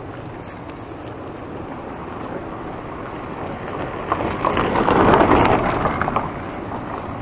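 A car passing close by in the opposite direction, its engine and tyres swelling up to a peak about five seconds in and then fading. Underneath, the steady rumble of bicycle tyres riding over a rough, potholed road.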